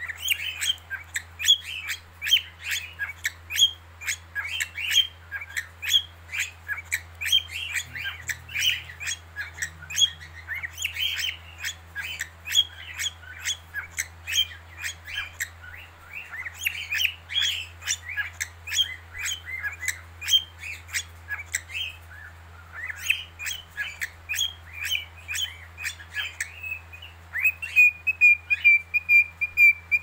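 Cockatiel singing: a fast, continuous run of short chirps and warbled notes, several a second, broken by two brief pauses, then a long held whistle near the end. A faint low hum sits underneath.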